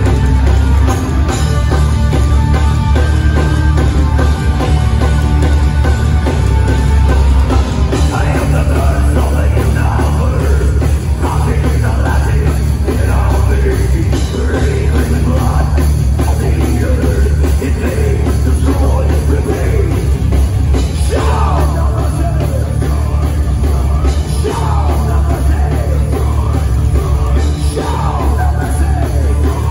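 Horror-punk metal band playing loud and heavy live, with a constant pounding low end. The singer's vocals come in over the band about eight seconds in.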